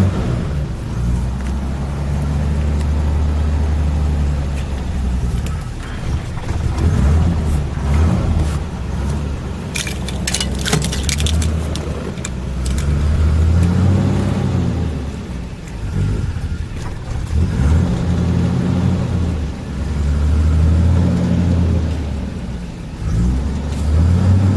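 1949 Dodge's flathead straight-six engine running, its pitch swelling and easing several times as it is revved and driven. A few sharp clicks sound about ten seconds in.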